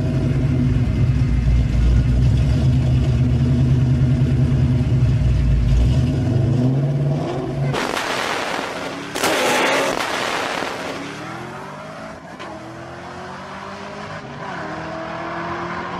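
Mustang SVT Cobra's V8 running loud and steady on the drag-strip start line, then a loud burst as it launches about eight seconds in. It pulls away through the gears, its rising engine note dropping back at each shift as it fades.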